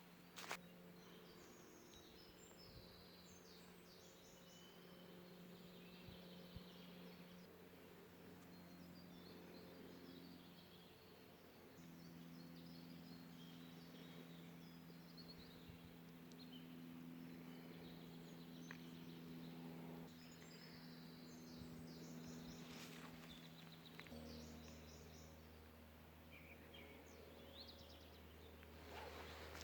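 Faint bird chirps and twitters in short spells, over a low steady hum whose pitch shifts in steps.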